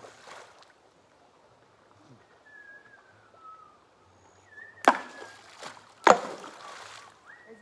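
Stones thrown into a creek, plunking into the water with sharp splashes. There is one right at the start, then two loud ones about a second apart just after the middle.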